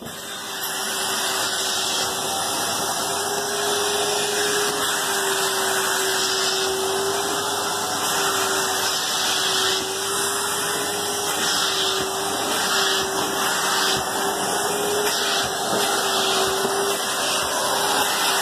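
Henry Hoover canister vacuum cleaner running steadily with a constant motor whine, coming up to speed over the first couple of seconds.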